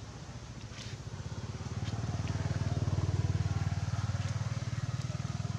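An engine running with a rapid low throb, growing louder over the first few seconds and then holding steady.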